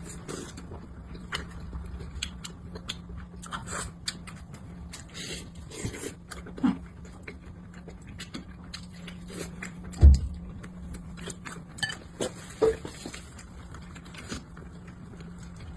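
Eating sounds: small clicks and scrapes of tableware and chewing, over a low steady hum, with one heavy thump about ten seconds in.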